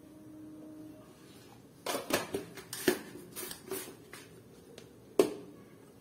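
Kitchen containers and utensils being handled: a couple of seconds of irregular clinks and clatter, then a single sharp knock near the end as a steel container is set down on the counter.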